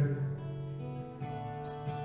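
Acoustic guitar playing the opening chords of a song, the notes ringing on, with a change of chord a little past the middle.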